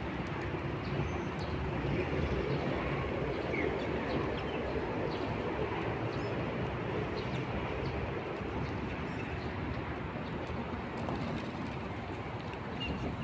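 Steady outdoor background rumble with a few short, faint bird calls over it.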